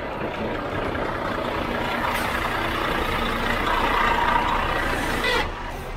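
Renault T520 truck's diesel engine running under way, heard from the cab, growing louder from about two seconds in and dropping off suddenly near the end.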